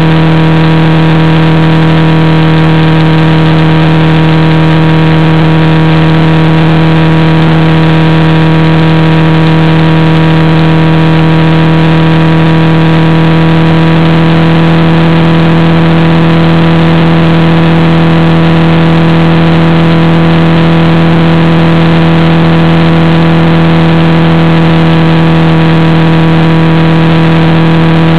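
Motorcycle engine running at a steady cruising speed, heard from the camera bike: a loud, even drone that holds one pitch throughout.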